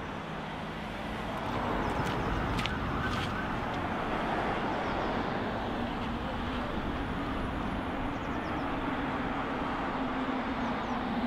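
Road traffic noise: a steady hiss of cars on a city street, with a few brief clicks about two to three seconds in.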